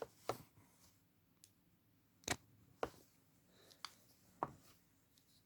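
A few short, sharp clicks and knocks, about five spread over several seconds, with quiet in between.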